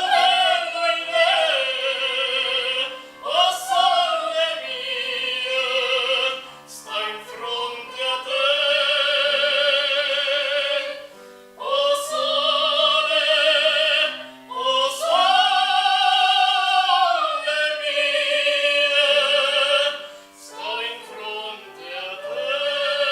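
A solo operatic voice singing an aria over piano accompaniment, holding long high notes with vibrato, with several short breaths between phrases.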